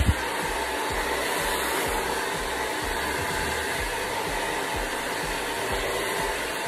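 Handheld hair dryer running steadily on high, blowing over wet hair extensions, with irregular low rumbles of air under the steady rush. A brief knock right at the start.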